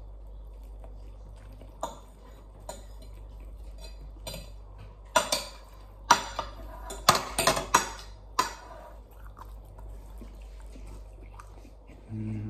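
Metal fork and knife clicking and scraping against a plate while eating, scattered at first, then a quick run of louder clinks and scrapes between about five and eight and a half seconds in. A steady low hum lies underneath.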